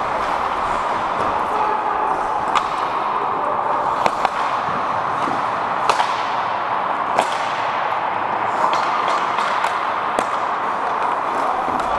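Ice hockey play: a steady rush of rink and skating noise, with several sharp clacks of sticks and puck every second or two.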